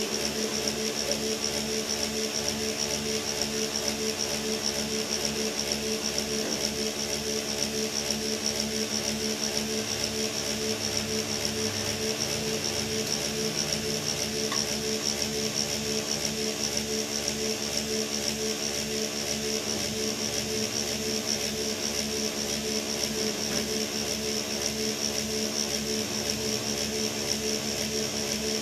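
Dump truck's diesel engine running steadily, with a low regular throb and a constant high-pitched whine over the drone.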